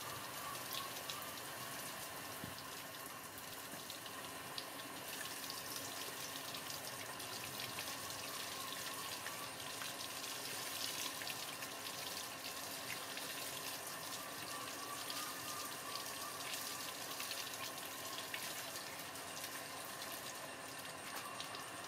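Water poured over a baby monkey lying on a plastic stool, splashing steadily with many small droplet ticks as it runs off the fur and stool.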